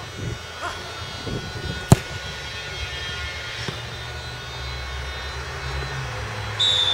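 A football being struck hard once, a sharp thud about two seconds in, over a steady low background rumble, with a short high whistle near the end.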